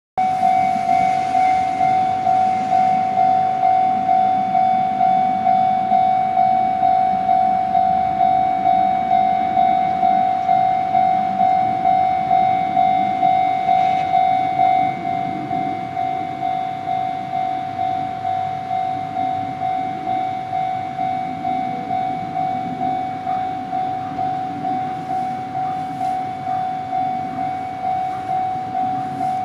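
Japanese level-crossing warning alarm ringing its repeated single-pitched clang in an even rhythm. It starts abruptly and drops to a lower volume about halfway through.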